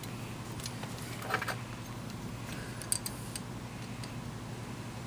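A few light, scattered metallic clicks from handling Mosin-Nagant rifle bolt parts while gauging them, over a steady low hum.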